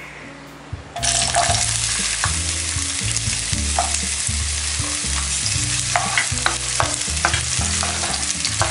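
Diced onion dropped into hot oil in a non-stick wok, which starts sizzling loudly and suddenly about a second in. A spatula stirs the onion, scraping and clicking against the pan.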